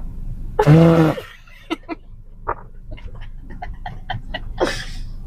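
A single loud, pitched bodily gas noise from a person, about half a second long and sagging in pitch at its end, about a second in. Faint scattered clicks follow, and a short breathy sound comes near the end.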